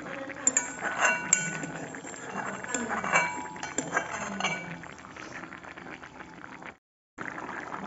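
Steel spoon clinking against a metal kadai of simmering chicken and potato curry: about seven sharp, briefly ringing clinks over the first four or five seconds, then softer stirring. The sound cuts out for a moment near the end.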